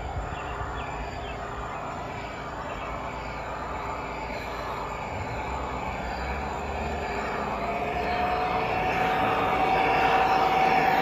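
G scale model freight train rolling past on the track, its wheels making a steady clattering hum. A steady high tone grows louder over the last few seconds as the cars go by.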